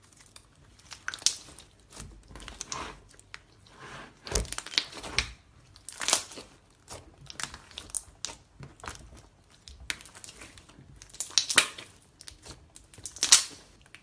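Slime being squeezed and pressed by hand, giving irregular crinkly crackling and crunching, with stronger crunches about a second in, around the middle, and near the end.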